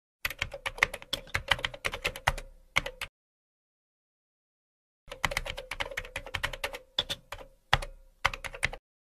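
Computer keyboard typing sound effect: two runs of rapid key clicks, each about three seconds long, separated by a couple of seconds of dead silence.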